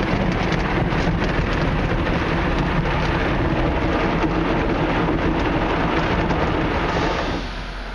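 Ryko SoftGloss XS 2.0 car wash's soft-cloth brushes scrubbing the car's doors and side windows: a dense, steady spatter of wet cloth and water against the body, muffled through the car, with a low hum underneath. The noise drops off sharply about seven seconds in.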